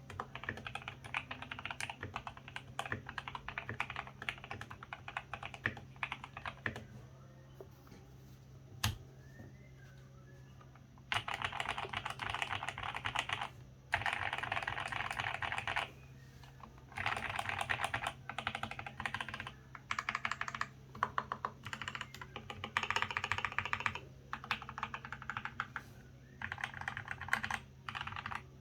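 Typing on a GK68X mechanical keyboard with lubed Gateron Yellow linear switches, a plastic case with foam inside and ABS keycaps, modded to sound deep and thocky. The keys are typed in runs of several seconds each, with a longer pause about a quarter of the way in that holds a single key click, over a faint steady hum.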